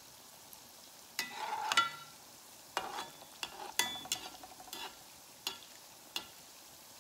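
Dough dumplings frying in a small metal pan of oil, a faint steady sizzle, while a slotted metal spoon stirs and scrapes through the oil, clinking against the pan in a string of sharp knocks with short metallic rings between about one and six seconds in.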